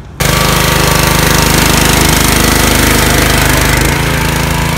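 Pressure washer cutting in abruptly and spraying steadily: a loud, pulsing hiss over the pump's hum while a dirt bike is washed. It eases slightly near the end.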